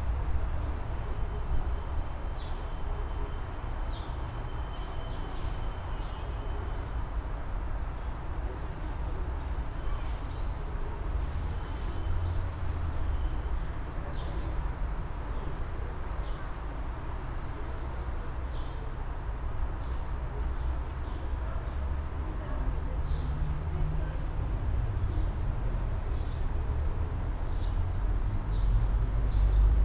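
Ambience of a light-rail tram platform: a steady low rumble of a tram standing at the platform and city traffic, swelling near the end, with a high, rapid chirping throughout.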